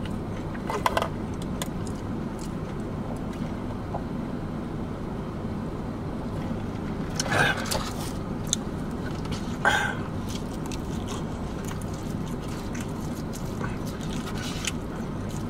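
Steady low hum inside a parked car's cabin, with a few brief mouth noises of eating and sipping, the clearest about seven and ten seconds in.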